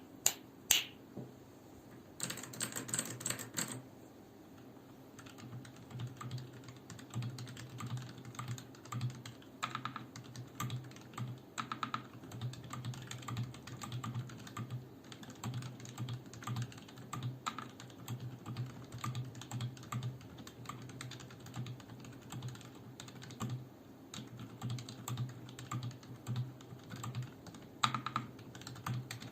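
Typing on a mechanical keyboard with Outemu Silent White linear switches, steady irregular keystrokes that are quiet and dull. A few sharp clicks come in the first second, then a quick flurry of keys a couple of seconds in.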